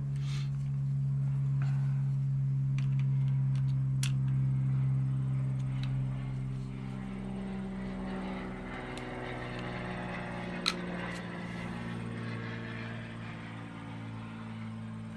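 A steady low droning hum whose pitch shifts slowly, with a few sharp clicks over it, the loudest about ten and a half seconds in.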